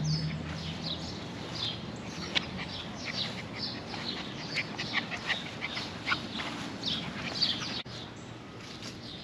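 Small birds chirping in many short, high, falling calls, scattered irregularly and overlapping.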